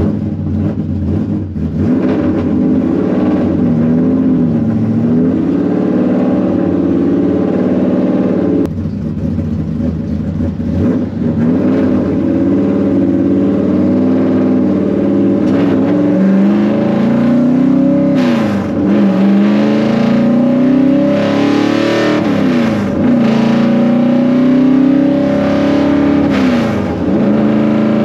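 A vehicle engine running loudly, its pitch repeatedly falling and climbing again as it revs and accelerates.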